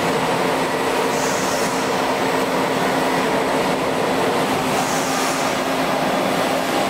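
Production-line machinery running steadily: a constant hum over broad mechanical noise, with two short hisses about a second in and again about five seconds in.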